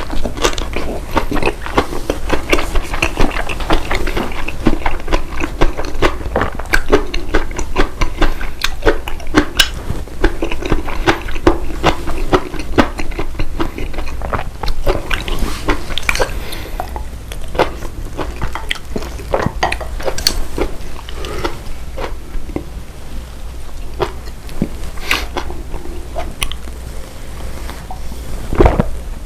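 A person chewing and biting food close to the microphone, with dense, irregular wet smacks and clicks, and now and then the light clink of utensils on dishes.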